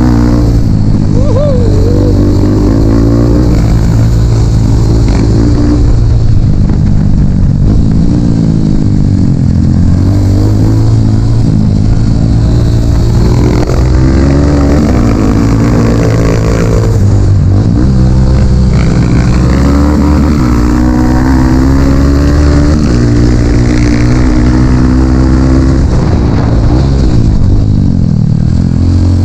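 Dirt bike engine revving up and down as the bike is ridden along the trail, its pitch climbing and dropping again and again without a break.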